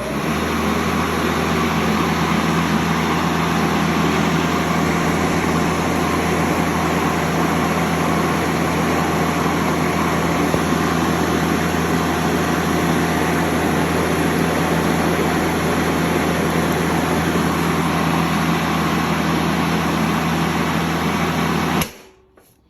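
Makita 36V (18V X2) LXT brushless cordless lawn mower running at full speed, its motor and 18-inch blade making a steady hum with a loud rush of air. Near the end it cuts off suddenly and stops almost instantly when the handle is released.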